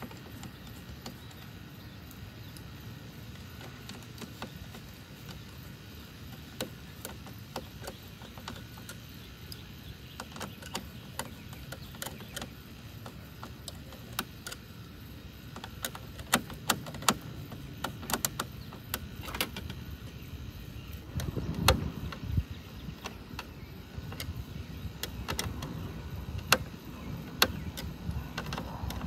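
Screwdriver turning and tapping the screws of a front license plate and frame: scattered small metallic clicks and scrapes, becoming more frequent in the second half, with a heavier knock about three-quarters of the way through. A low steady rumble runs underneath.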